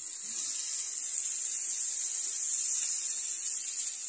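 Chicken masala sizzling in a hot aluminium kadhai on a gas stove, a steady high hiss that grows louder just after the start as water is poured into the pan.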